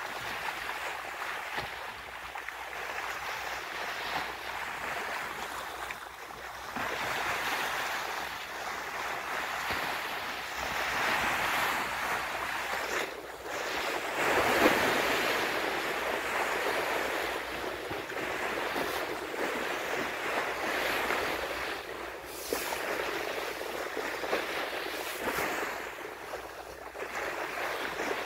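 Sea water rushing and splashing as a ship's bow pushes through it, a steady hiss that swells and fades, with some wind on the microphone.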